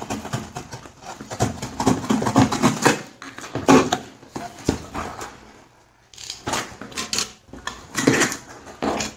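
Cardboard shipping box being cut along its tape and torn open by hand: scraping, tearing and rustling of cardboard and packing tape in irregular bursts, with a brief lull about six seconds in.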